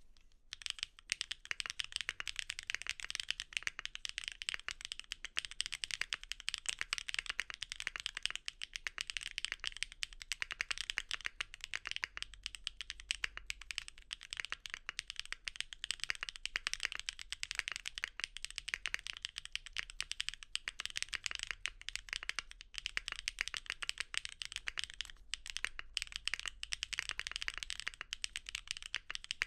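Continuous fast typing on a mechanical keyboard fitted with factory-lubed Gateron x SiliWorks Type R switches (POM stem, polycarbonate top, nylon bottom) on a polypropylene (PP) plate. It is a dense, steady stream of crisp keystroke clacks that starts about half a second in.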